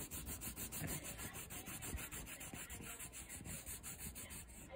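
Black pencil scribbling rapidly back and forth on paper, shading in a solid area with quick, even scratchy strokes, several a second.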